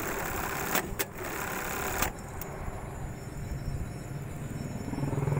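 Juki industrial button-sewing machine running, with several sharp clicks, stopping with a clunk about two seconds in, then a quieter steady hum.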